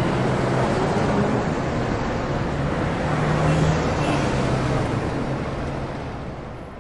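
Dubbed-in city street traffic: cars running and passing over a steady traffic rumble, fading out over the last couple of seconds.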